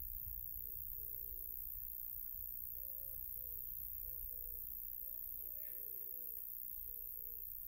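Birds calling faintly: a run of short, low, arching notes with a few higher chirps, over a low steady rumble.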